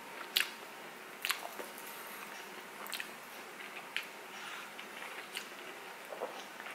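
A person chewing a mouthful of sauce-glazed chicken close to the microphone, with a few sharp wet clicks and smacks from the mouth.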